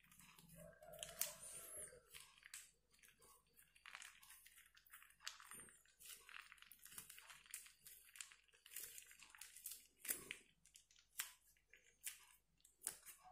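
Faint crinkling and crackling of a white cloth wrapped around wet slime mixture as it is squeezed and wrung out by hand, many short crackles one after another.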